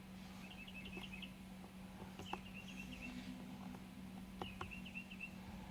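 Faint bird chirping: short phrases of quick, high chirps repeated every second or two, over a steady low hum, with a couple of light clicks.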